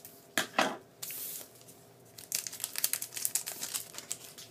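Foil trading-card pack wrapper being torn open and crinkled by hand. There are a few short rustles, a brief tearing hiss about a second in, then a run of dense crinkling from about two seconds in.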